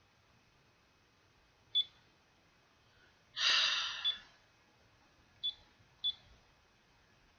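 Digital alarm clock giving short high key-press beeps, three in all, as its buttons are pressed. About three and a half seconds in comes a louder breathy rush of noise, fading over less than a second.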